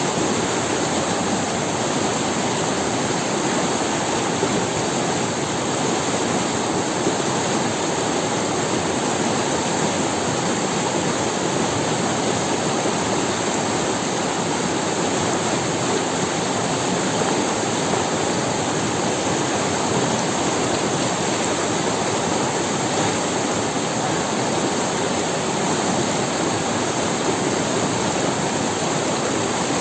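Forest river running over stones: a steady, even rush of water with no breaks.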